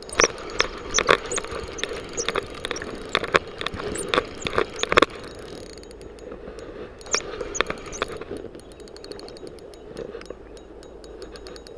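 Spinning reel being cranked to reel in line, its gears and mechanism ticking and rattling right by the microphone. Sharp irregular clicks and knocks from the handle and hands on the reel fill the first five seconds and come back about seven seconds in, then give way to a faster, finer ticking near the end.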